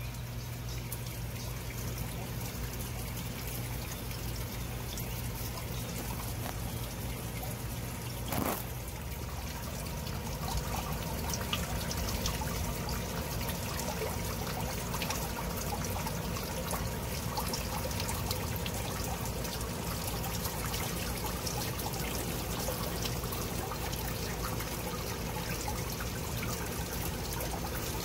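Water trickling and splashing in a garden fountain, louder from about ten seconds in. There is a short thump about eight seconds in.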